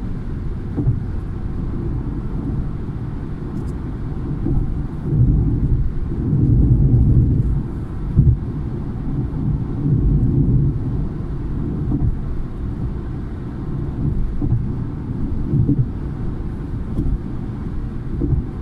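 Low, steady road rumble of a car driving at motorway speed, heard from inside the cabin: tyre and wind noise, swelling louder for a few seconds in the middle.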